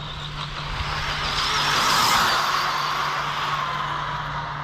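Stretched Arrma Typhon RC car on 6S, with a Hobbywing Max6 brushless system, speeding past at high speed. Its motor whine and tyre noise swell to a peak about two seconds in, then fade as the pitch drops.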